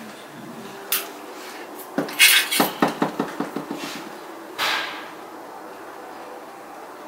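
Clatter during handling: one sharp knock, then a quick run of about ten knocks and rattles that fade over about two seconds, followed by a short hissing burst.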